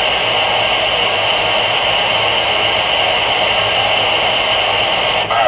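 Steady static hiss from a Superstar CRE8900 CB radio's speaker while the channel is open and no one is transmitting. It cuts off abruptly just before the end as the next station keys up.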